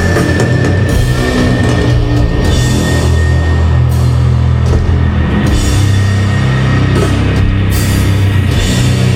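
Live doom metal band playing loud and heavy: slow, sustained distorted guitar and bass chords over drums, with cymbal crashes washing in and out and a thin high steady tone held above.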